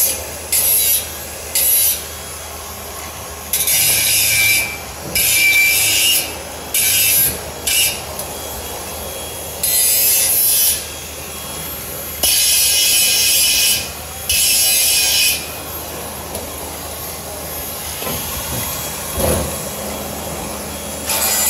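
Makita DGA404 18V cordless 100 mm angle grinder cutting steel flat bars: repeated bursts of high-pitched grinding as the disc bites into the metal, each lasting up to a second and a half, with the tool quieter between cuts. The last few seconds have no cutting.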